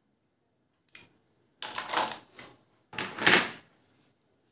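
A short click, then two scraping, clattering spells of hard plastic: a 12 V cordless drill and its battery pack being handled. No motor is running.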